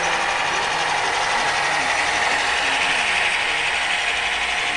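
Model trains running on a layout: a steady mechanical whir of small locomotive motors and wheels rolling on the track.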